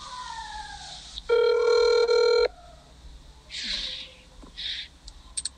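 A loud electronic ring of several steady tones sounds once for about a second, starting just over a second in and cutting off sharply. Two short breathy hisses and a few clicks follow.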